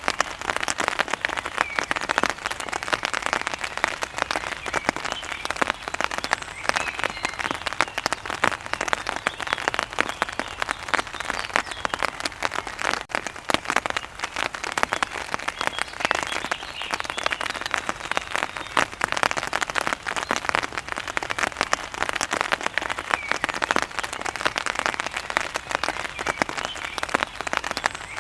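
Steady rain falling on a surface, a dense patter of drops.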